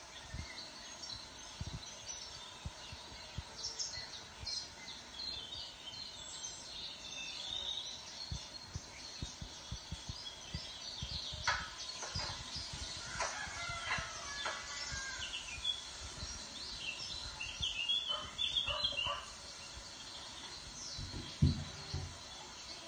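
Farmyard bird calls: small birds chirping throughout, with louder poultry calls in the middle and again near the end. A single low thump near the end is the loudest sound.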